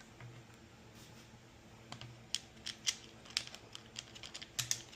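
Irregular sharp metallic clicks and taps from small parts and hand tools being handled while a string trimmer's gas tank is bolted back on. They begin about two seconds in and come thickest near the end.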